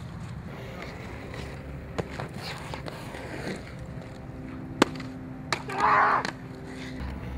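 Inline skate wheels rolling on asphalt, with a few sharp clacks, the loudest nearly five seconds in, and a short louder noisy burst about six seconds in.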